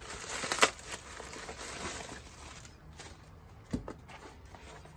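Plastic courier bag crinkling and rustling as it is torn open by hand, loudest in the first two seconds with a sharp crackle under a second in. Then quieter handling of a small cardboard box, with one dull thump about three-quarters of the way through.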